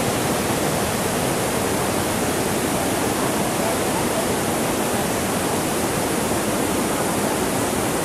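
Whitewater river rapids rushing steadily over rocks, a constant even roar of churning water.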